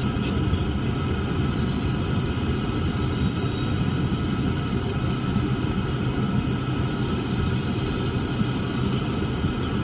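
Cessna 340's twin turbocharged six-cylinder piston engines and propellers running steadily while the plane taxis, heard from inside the cabin as a dense, even drone with a low rumble and several steady tones above it.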